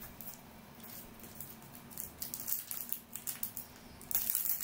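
Foil wrapper of a Topps Merlin Chrome trading-card pack crinkling as it is handled and torn open. The crackling starts about two seconds in and gets louder near the end.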